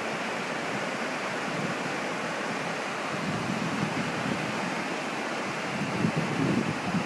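Waterfall rushing, a steady even hiss of falling water, with wind gusting on the microphone near the end.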